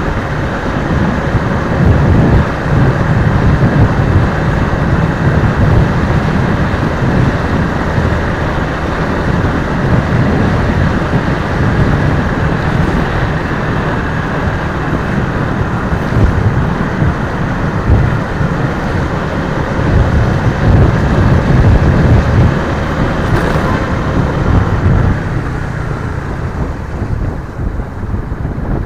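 Riding noise from a Suzuki Raider 150 FI motorcycle underway: uneven wind rumble on the microphone, with the bike's single-cylinder engine running steadily beneath it.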